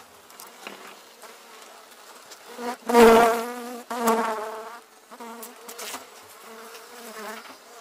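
Honeybees buzzing as they fly close past the microphone over an opened hive. The wavering buzz swells loudest about three seconds in, then fades and returns more faintly in short passes.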